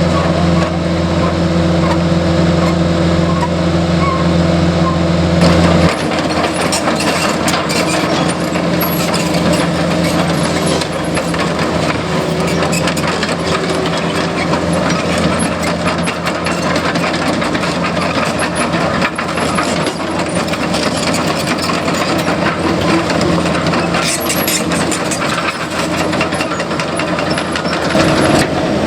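CAT 308E mini excavator's diesel engine running with a steady hum. About six seconds in this gives way to a noisier stretch of clanks, knocks and scraping as the machine digs, and the steady engine tone returns near the end.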